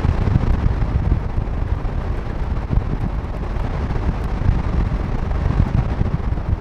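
Storm wind gusting against the nest-box microphone, a loud, unbroken low rumble that flutters with the gusts, over a steady hiss of heavy rain.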